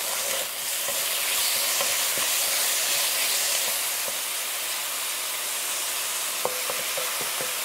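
Diced chicken sizzling in hot oil in a nonstick wok as it is stirred with a wooden spatula: a steady frying hiss, with a few light taps of the spatula near the end.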